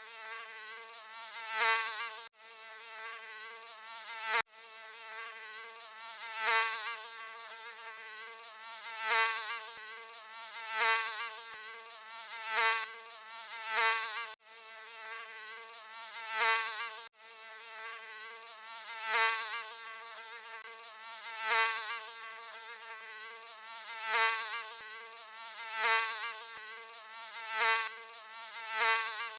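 Mosquito buzzing: a high, wavering whine of wingbeats that swells louder every two to three seconds, as if flying past the ear, then fades back. A few brief dropouts break it where the recording is looped.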